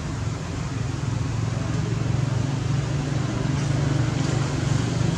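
A steady low engine hum, growing gradually louder.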